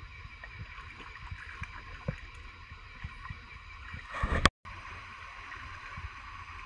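Small knocks and water splashes from hands working in a shallow stream, over a steady hiss of running water. Just after four seconds a loud rush of noise right at the microphone builds up and cuts off abruptly.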